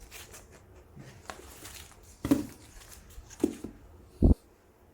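Handling of comic books in plastic sleeves: scattered light rustles and taps, with a short dull thump about four seconds in.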